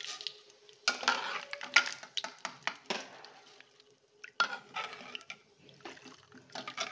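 Perforated stainless-steel ladle clinking and scraping against a steel kadai as fried roasted gram is scooped out of hot oil, in several short bursts of clatter.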